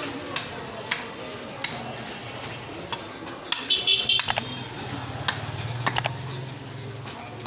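Butcher's cleaver cutting a leg of meat, making scattered sharp knocks and metallic clinks, with a quick cluster of ringing clinks around the middle. A low steady hum comes in about halfway through.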